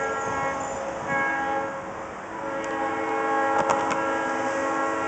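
Freight locomotive's multi-chime air horn sounding for the grade crossing: a long blast that ends about a second in, a short blast, then a long blast that begins near the middle and is still sounding at the end. This is the close of the long-long-short-long crossing signal.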